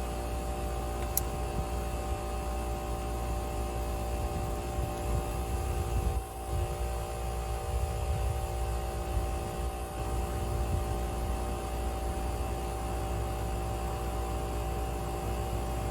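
Smoke leak detector's small air compressor running steadily with an even, tonal hum as it pumps smoke into the engine's intake system under pressure to reveal vacuum leaks.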